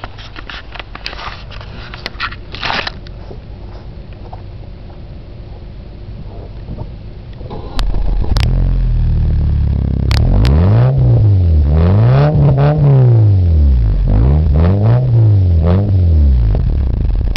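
A 1997 Nissan Altima's KA24 2.4-litre four-cylinder runs through a Thrush turbo glasspack exhaust. It idles at first, then sounds much louder right at the tailpipe from about eight seconds in. There the engine is revved several times, its pitch rising and falling with each blip of the throttle.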